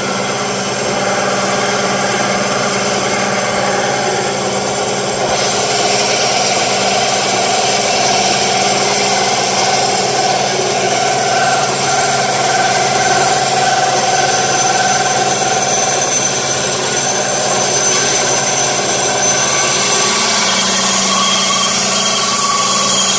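Delta 10-inch benchtop bandsaw, fitted with shop-built ball-bearing blade guides, running steadily with a level motor hum, a little louder near the end.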